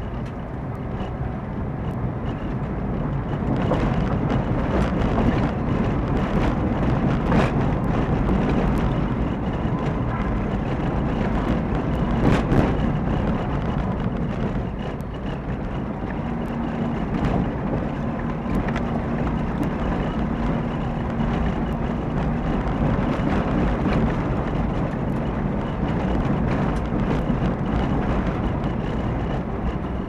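Car driving on a mountain forest road, picked up by a dash camera: a steady engine and tyre rumble with many short clicks and knocks from the road surface.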